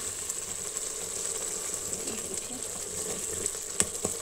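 Methi and tomato-onion masala simmering in a pot with a steady bubbling sizzle, the wet gravy spitting and hissing. Near the end a wooden spoon knocks sharply against the pot a couple of times.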